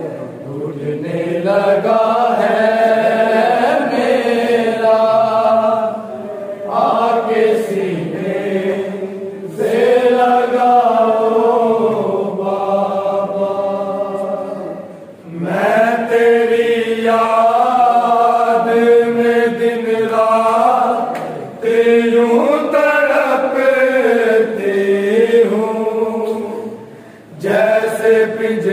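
A noha chanted by a group of voices without instruments. Long held phrases follow each other, with short breaths between them every few seconds.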